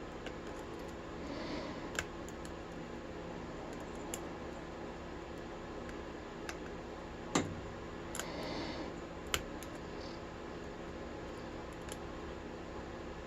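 Lock pick and tension wrench working the pin stack of a Kasp 12440 all-brass four-pin padlock: scattered small clicks and light scraping, with one sharper click about seven seconds in.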